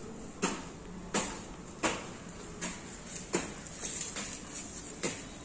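Footsteps in sandals climbing concrete stairs, one sharp step about every three-quarters of a second.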